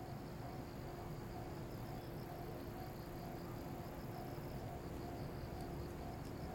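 Insects chirping in a steady pulsing rhythm, about five pulses a second, over a low background hum, with a faint tone repeating on and off.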